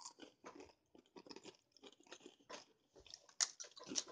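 Doritos tortilla chips being crunched and chewed close to the microphone: irregular crackly bites, with a few louder crunches near the end.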